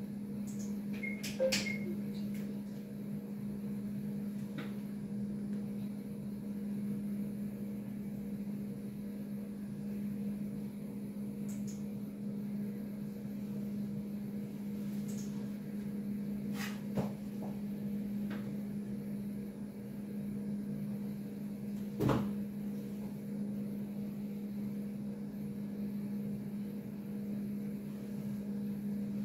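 Steady low electrical hum of equipment, with a few faint clicks and taps: one shortly after the start, one a little past the middle and a sharper one about three-quarters of the way through.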